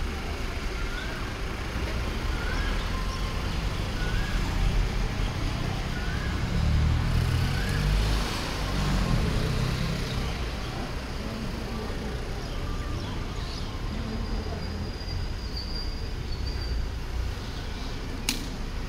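Steady low rumble of road traffic and engines, swelling for a few seconds in the middle. A faint short chirp repeats every second or two through the first half, and there is a single sharp click near the end.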